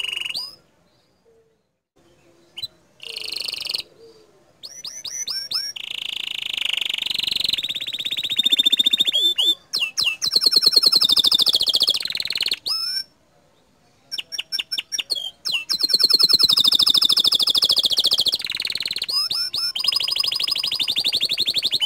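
Domestic canary singing a long song of fast trills and rapid repeated notes, in loud phrases broken by a few short pauses.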